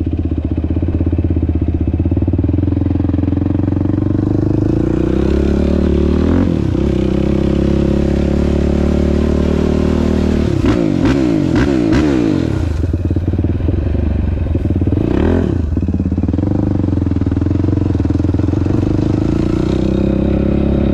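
Sport ATV engine running close up while the quad is ridden. Its revs rise and fall a few times, mostly around the middle.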